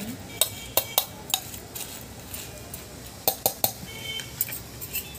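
Metal spoon clinking and scraping against a stainless-steel bowl while stirring a dry snack mix of puffed rice, farsan and sev, in irregular knocks with a few short metallic rings.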